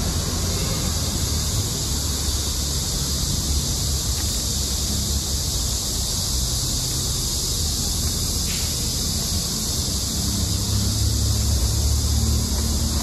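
Steady outdoor ambience: a low rumble under an even high hiss, with no distinct events.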